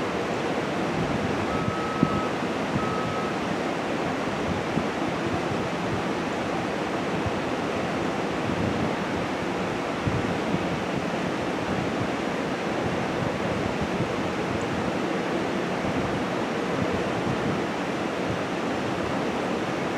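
Steady rushing noise of wind on the microphone.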